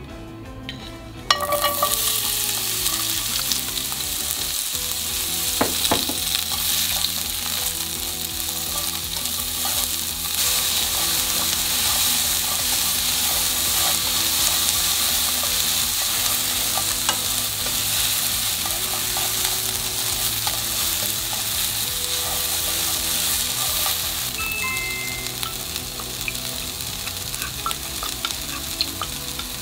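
Sliced onions frying in hot oil in a nonstick frying pan, a sizzle that starts suddenly about a second in and carries on steadily as they are stir-fried with a wooden utensil. The sizzle eases off somewhat near the end.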